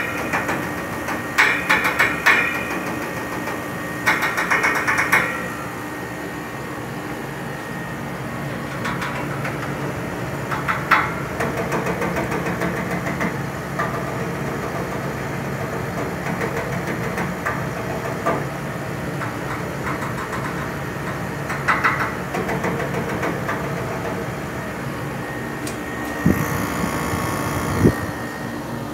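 Kolin window-type air conditioner running with a steady hum. Clusters of sharp rattling knocks sound in the first five seconds, with a few more near 22 seconds and near the end.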